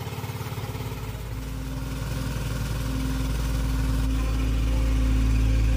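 Motorcycle engine idling with a rapid, even beat, growing gradually louder.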